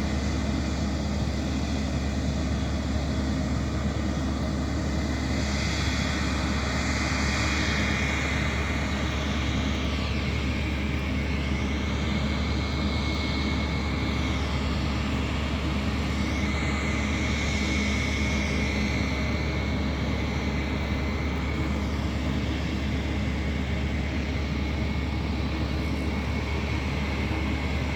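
Aircraft engines running as a steady drone, with a high whine that dips and rises in pitch several times in the middle.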